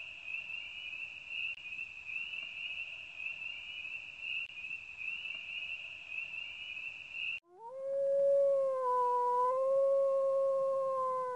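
Night insects chirring steadily in a high, finely pulsing band, cut off abruptly about seven seconds in by one long canine howl that rises at the start, holds for several seconds and sinks at the end.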